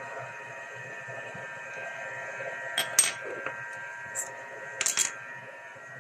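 A few sharp clinks of hard objects being handled, in two short clusters about three seconds in and again near the end, over a steady machine-like hum.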